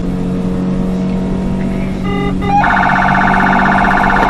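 Steady engine and road noise from a car at highway speed. About two and a half seconds in, after a short beep, a loud electronic siren switches on with a fast warble and keeps sounding.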